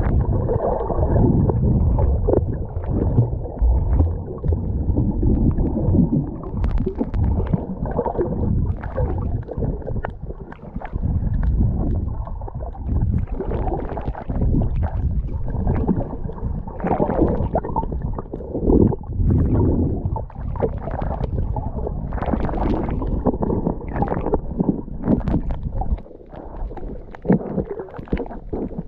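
Muffled underwater rumble and gurgling of water moving around a submerged camera, with frequent short clicks and crackles. It drops quieter for a moment about 26 seconds in.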